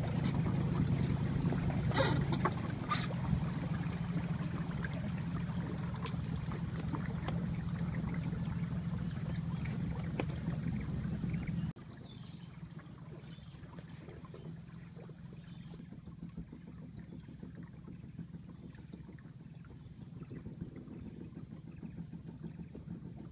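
Outboard motor of a small river boat running steadily, with water and wind noise around it. About twelve seconds in, the sound cuts abruptly to a quieter, similar steady engine hum.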